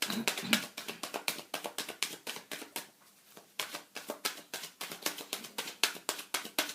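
A deck of tarot and oracle cards being shuffled by hand, cards snapping against each other in quick clicks, about six a second, with a short pause about three seconds in.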